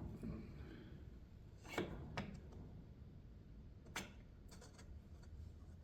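A few light clicks and knocks as parts of an outboard motor's lower unit are handled and fitted together, over a faint low hum.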